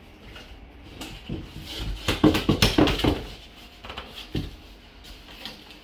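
Thick cardboard kit panels knocking and scraping as they are handled and slotted together, with a cluster of sharp knocks about two to three seconds in and another single knock a little later.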